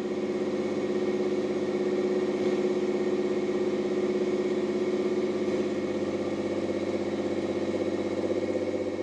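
1986 Pontiac Fiero GT's 2.8-litre V6 engine idling steadily.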